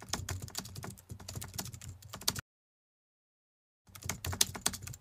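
Computer keyboard typing sound effect: a rapid run of key clicks that stops dead about two and a half seconds in and starts again about a second and a half later.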